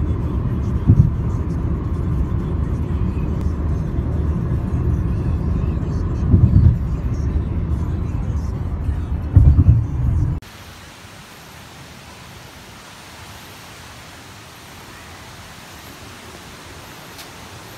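Road noise inside a moving car on a highway: a loud low rumble with three heavier surges. About ten seconds in it cuts off sharply and gives way to a quieter steady hiss with faint, very high chirps repeating about once a second.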